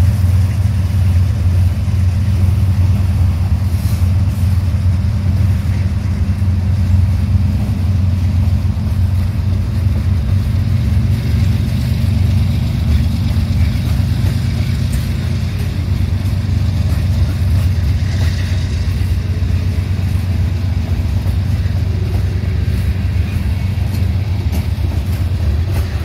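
A steady low engine rumble with no breaks and little change.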